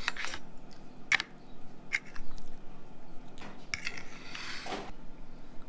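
Metal fork clinking and scraping against a dinner plate as food is cut and mixed: a few short clinks, then a longer scrape near the end.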